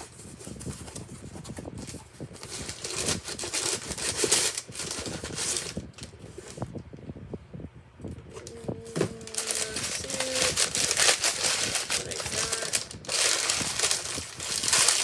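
Packaging being torn open and unwrapped by hand: irregular crinkling, rustling and crackling of plastic wrap and paper, with short pauses.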